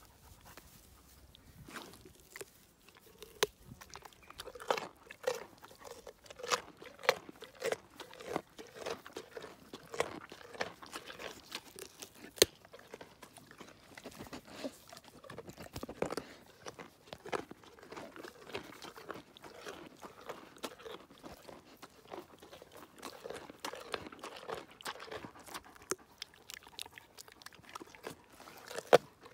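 Pony crunching and chewing carrots close up: irregular crisp crunches, a few a second.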